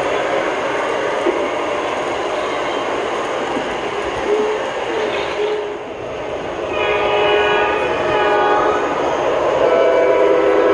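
Lionel O-gauge Amtrak Acela model train running on the track, with its onboard sound system sounding the horn twice in the second half, in long steady blasts.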